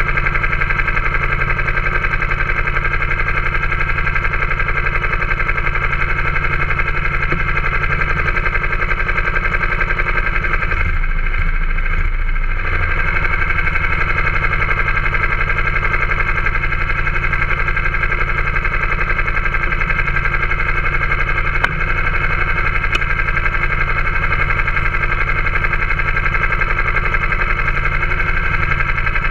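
Go-kart engine idling steadily while the kart stands still, with a brief dip in the sound about twelve seconds in.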